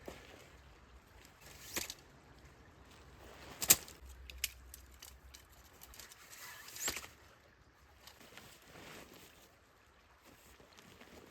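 Camping gear being handled and packed away: scattered clicks, knocks and light rustling, the sharpest knock a little under four seconds in.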